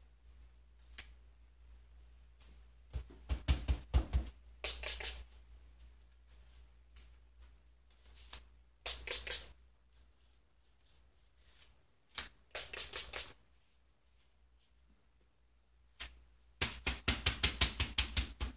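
Finger-pump spray bottle of craft ink spritzed in quick runs of short hissing sprays, several sprays per run, with pauses between runs; the longest run comes near the end.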